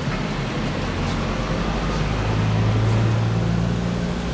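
Low mechanical drone of a running engine, growing louder about two seconds in and easing near the end.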